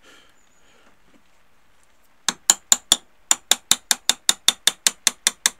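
A fast, even run of light metallic taps, about five a second, starting a couple of seconds in, driving a long linear bearing out of its housing.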